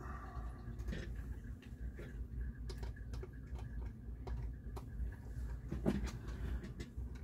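Light, irregular clicks and ticks, roughly one or two a second with a louder one about six seconds in, from hand work on a Rega Planar 2 tonearm as its counterweight and rear mounting screw are taken off, over a steady low hum.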